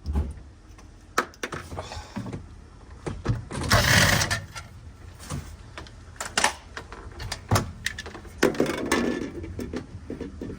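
Clicks, knocks and scraping of plastic parts being handled while a refrigerator's freezer back wall panel and light are taken out, with a louder scrape about four seconds in.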